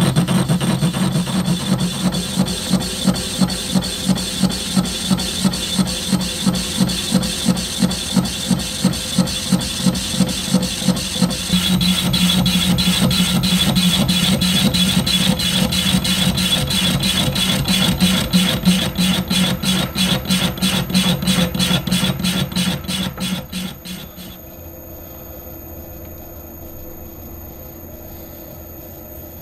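Metal lathe turning and cutting a cast-iron flywheel blank, the tool cut beating in an even rhythm of a few pulses a second. About 24 seconds in the cutting stops and only a lower steady hum remains.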